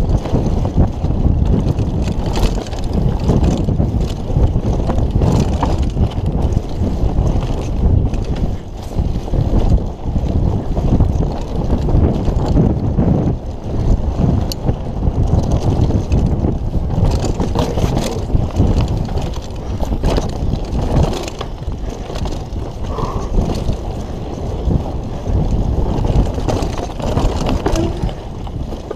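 Downhill mountain bike (Kona Operator) descending fast on a dirt trail: a continuous rumble of knobby tyres over the ground and wind on the GoPro microphone, with frequent knocks and rattles from the bike over bumps, roots and rocks.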